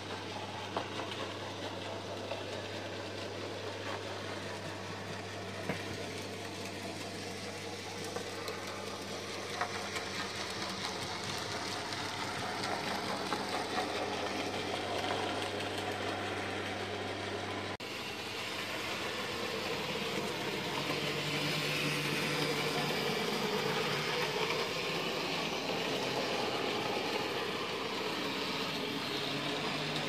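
N gauge model trains running: a small electric locomotive motor whirring, with a steady low hum and occasional light clicks of wheels on the track. The hum stops abruptly about two-thirds of the way through and a slightly different steady tone takes over.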